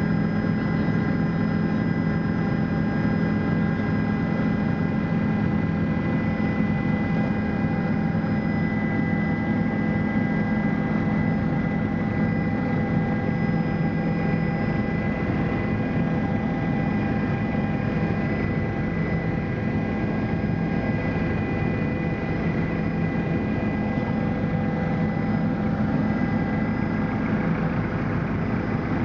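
Helicopter in cruising flight, heard from inside the cabin: a steady low drone from the engine and rotor, with a steady high whine running over it.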